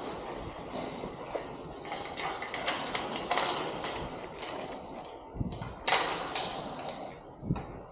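Metal hardware of a storage cage being handled and knocked: scattered clanks and scraping rattles, with one sharp, loud knock about six seconds in.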